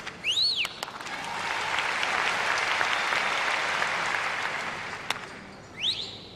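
Theatre audience applauding, swelling after about a second and fading away about five seconds in. A whistle glides up and down just after the start, a sharp snap comes about five seconds in, and a second whistle rises near the end.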